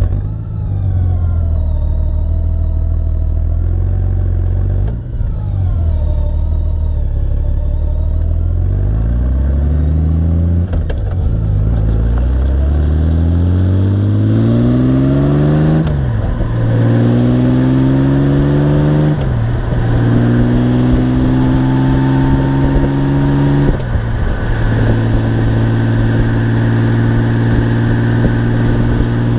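Honda Gold Wing engine idling, then pulling away and accelerating through the gears: the pitch rises, drops at each of about four upshifts, and then holds steady at cruising speed. Road and wind noise grow as the bike gathers speed.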